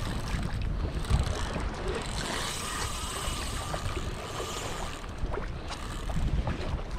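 Gusty offshore wind buffeting the microphone on a kayak at sea, a steady low rumble and hiss, with water washing against the kayak's hull.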